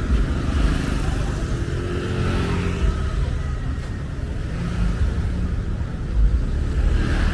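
Busy street noise at a night market: a heavy, uneven low rumble with a fainter background haze above it.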